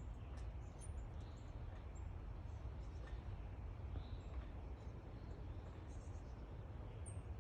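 Outdoor backyard ambience: a steady low rumble with a few brief, high-pitched chirps of small birds, one about a second in and another near the end, plus faint scattered ticks.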